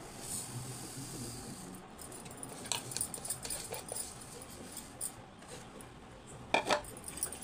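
Steel kitchen vessels and a mixer jar handled on a countertop: a few light clinks and knocks, the loudest shortly before the end, with a soft hiss in the first second or so.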